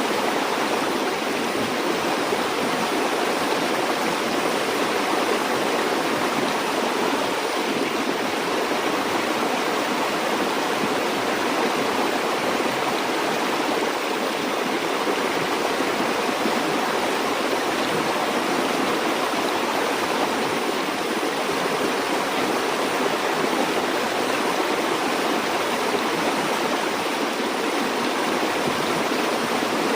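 A stream or river flowing steadily, with an even rush of water and no breaks or changes.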